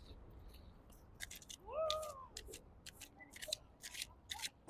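Tarot cards being shuffled by hand: a string of short, crisp, irregular snaps. About two seconds in, a short tone rises and falls.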